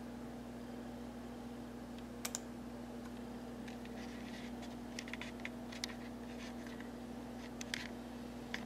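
Scattered small clicks from working a computer's mouse and keyboard, over a steady low hum.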